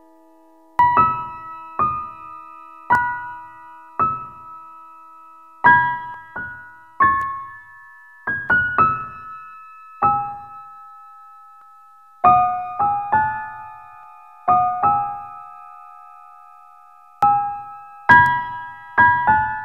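Background music on a piano-like keyboard: a slow melody of single struck notes, each ringing and fading, about one note a second, with short pauses between phrases.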